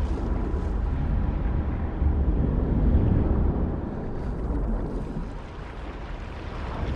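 Choppy sea water sloshing and churning around a person in the water, over a steady deep rumble; the sound eases off a little about five seconds in.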